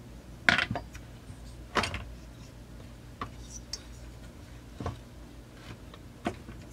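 Hands handling the plastic chainsaw body and parts: about five scattered small clicks and knocks, over a steady low hum.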